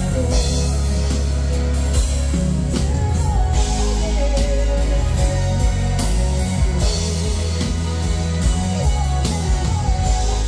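Live band playing loudly: a woman singing lead over electric bass, keyboards and a drum kit with a steady beat.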